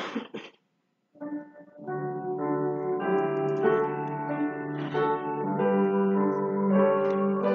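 Keyboard instrument playing slow, sustained chords, starting about a second in and building, with notes held for a second or more at a time.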